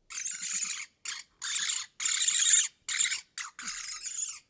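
Electronic predator caller playing a prey-distress sound: a run of raspy, high-pitched squealing cries in about seven short bursts, each broken off by silence.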